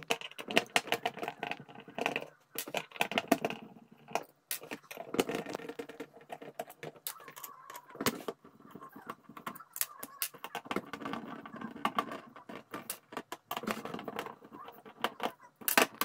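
Screwdriver turning out the small screws of a steel UPVC door lock case: irregular metallic clicks, ticks and scraping, with the lock body rattling against the table.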